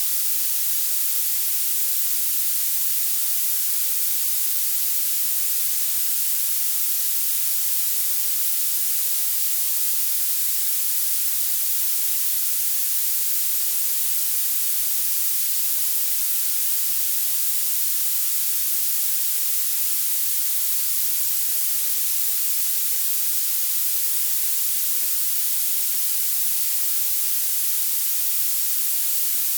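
Violet noise: a steady, unchanging hiss whose energy climbs toward the highest frequencies, with almost no low end, so it sounds thin and very bright.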